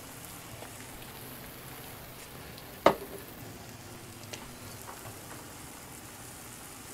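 Eggs and sausage sizzling gently in a frying pan as an omelet cooks, with one sharp clack about three seconds in and a couple of light clicks after it.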